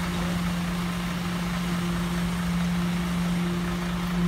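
Steady machine hum at a concrete pour, from the concrete mixer truck and equipment running beside the fresh concrete between tram rails; one low, even tone with a rumble beneath, a little louder near the end.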